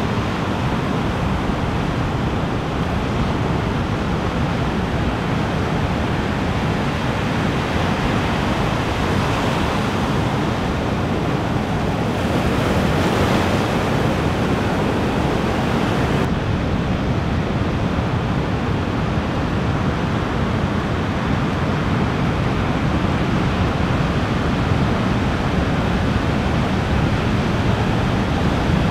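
Ocean surf: waves breaking and washing in, a steady rushing hiss with a rumble underneath. One louder surge of breaking water comes about twelve to sixteen seconds in, and the hiss then drops off suddenly.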